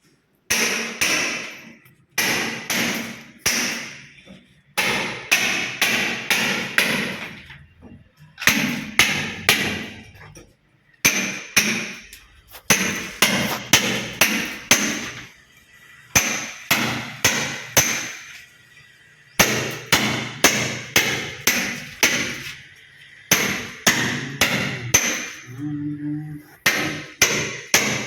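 Repeated hammer blows on a hard surface, coming in bursts of several quick strikes with short pauses between.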